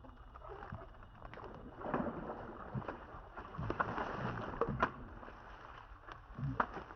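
Water sloshing and splashing unevenly, with scattered sharp clicks and rustles.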